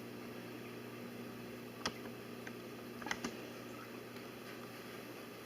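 Faint steady low hum with a few light clicks: one about two seconds in and two close together a little after three seconds.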